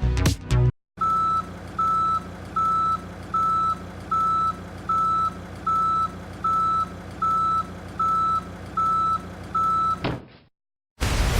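A vehicle's reversing alarm beeping, about twelve evenly spaced single-pitch beeps a little over one a second, over a steady low engine hum. It stops suddenly near the end.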